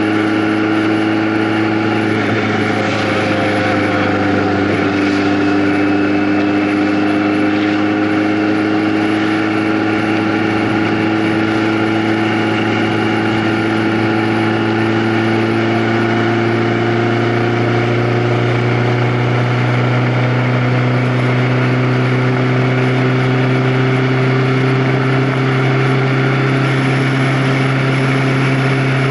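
A vehicle's engine running under way. Its pitch drops briefly about two seconds in, then rises slowly and steadily as it gathers speed.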